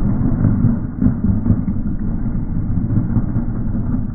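A pickup truck's engine running hard under load, a loud, dense, rough low rumble.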